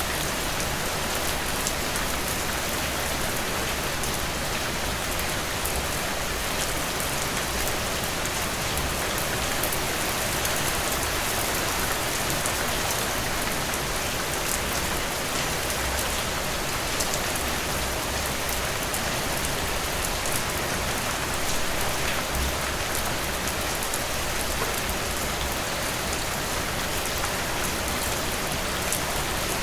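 Heavy rain pouring steadily, a dense even hiss with the patter of drops hitting a surface.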